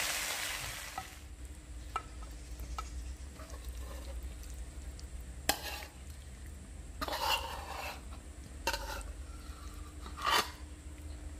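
Sizzling from a wok fades out during the first second. Then a metal spatula scrapes and clinks against the pan as sauce-coated fried chicken is scooped onto a plate, in about four short scrapes a second or so apart.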